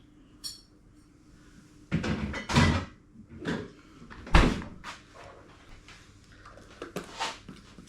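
A string of knocks and clatters, like objects being handled and set down on a hard surface, the heaviest a deep thump about four and a half seconds in.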